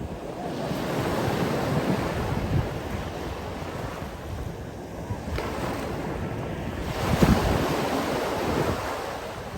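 Sea waves surging and washing ashore in a steady rushing wash, swelling about a second in and again more strongly about seven seconds in as a bigger wave breaks.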